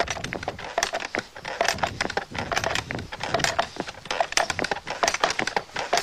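Antique wooden hand-pumped bellows vacuum cleaner, a Baby Daisy, being worked: a quick, irregular clatter of wooden clicks and knocks.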